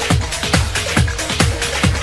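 Background electronic dance music with a steady four-on-the-floor kick drum, a little over two beats a second, over hi-hats.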